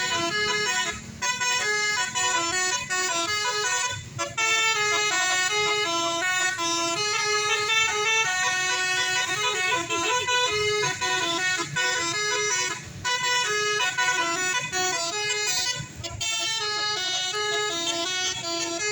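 Bus telolet basuri horn playing a fast tune of stepping notes, broken by a few short pauses.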